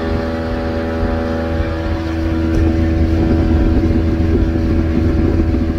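Small boat's engine running steadily at speed, with the rush of wind and water over the hull; it grows a little louder about two and a half seconds in.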